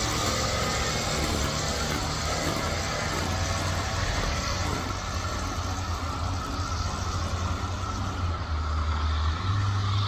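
A gas string trimmer engine running at a distance, under a dense, steady chorus of periodical cicadas droning all around.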